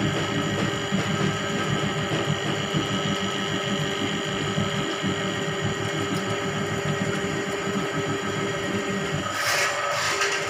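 Motorised drain-cleaning machine running steadily, its spiral cable spinning and rattling as it churns through water in a blocked drain. A brief hissing rush of noise near the end.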